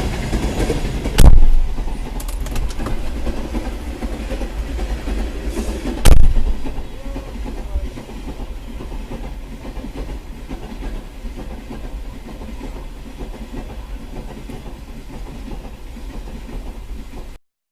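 A train running past with a steady low rumble and wheel clatter, with two loud bangs, about a second in and about six seconds in. The rumble then eases off and cuts off just before the end.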